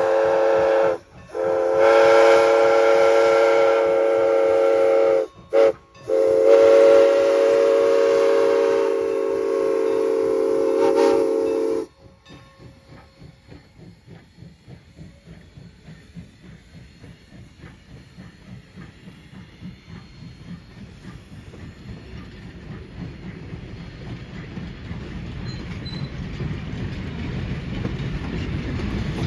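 Southern Pacific six-chime steam whistle on Norfolk & Western 4-8-0 steam locomotive No. 475 blowing long chord blasts broken by brief gaps, with a short toot about five and a half seconds in, and stopping about twelve seconds in. Then the freight cars' wheels click over the rail joints in a steady rhythm, growing louder as the train rolls past.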